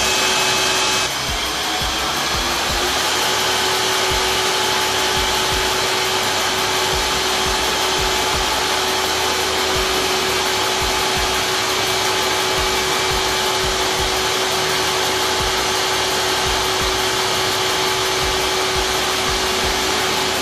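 Pump-room machinery running: electric motors and pumps giving a loud, steady hum and whir with a few steady tones. About a second in the sound shifts and one tone rises over a couple of seconds, then holds steady.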